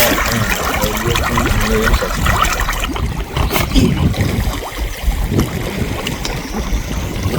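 Water splashing and trickling, with faint voices in the first second or so.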